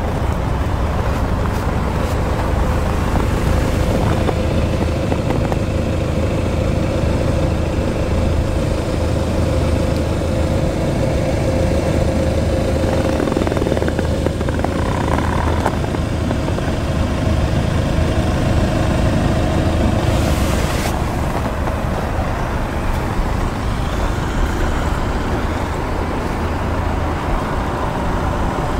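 The 2016 Jaguar F-Pace's 2.0-litre four-cylinder turbodiesel running steadily at an even engine speed, with a low hum.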